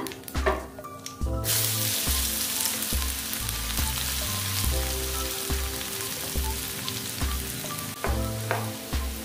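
Cubes of white tofu hitting hot cooking oil in a wok: the oil bursts into a loud, steady sizzle about a second and a half in and keeps frying, with a few light spatula scrapes and taps.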